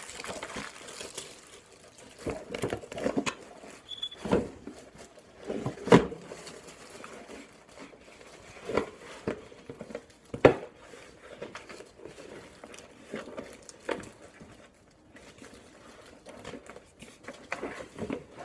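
Handling noise from PC parts being worked on by hand: irregular clicks and knocks over soft rustling, with the two sharpest knocks about six and ten and a half seconds in.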